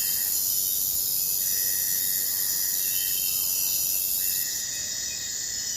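Forest insect chorus of crickets or cicadas: a dense, steady, high-pitched shrilling made of several held tones. A lower steady note from another caller comes and goes, each one held for more than a second, about every three seconds. The highest part of the chorus stops about four and a half seconds in.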